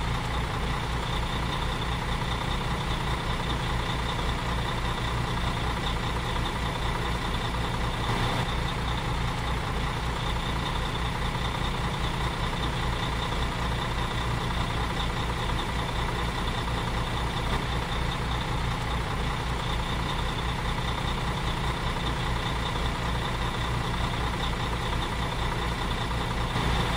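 Heavy truck engine idling, a steady, even low throb with no change in speed.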